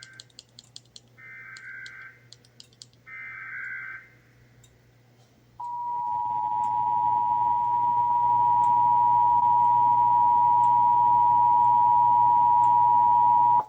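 Emergency Alert System test tones: two warbling SAME data bursts of about a second each, then, about five and a half seconds in, the EAS two-tone attention signal starts and holds steady and loud, with broadcast hiss under it, until it cuts off sharply at the end.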